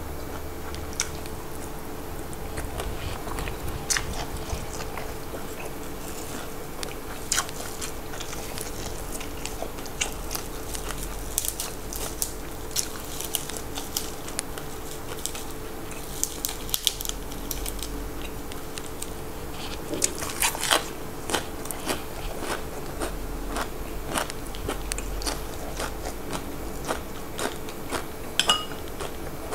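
Close-up eating sounds: crisp raw vegetables and leaves crunched and chewed, with sharp crunchy bites scattered throughout over a faint steady hum.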